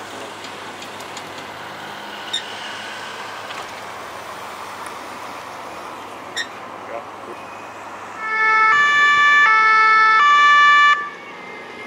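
German emergency-vehicle two-tone siren (Martinshorn) sounding for about three seconds near the end, stepping back and forth between a high and a low note. Under it runs steady street and engine noise.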